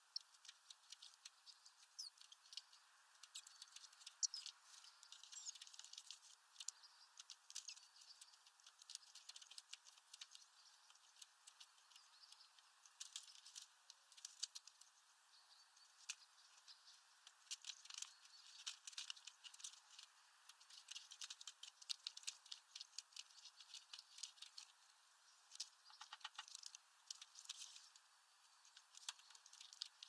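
Faint, irregular tapping and scratching of great tits pecking at food in a mesh feeder bag and gripping the netting, with a few short high chirps.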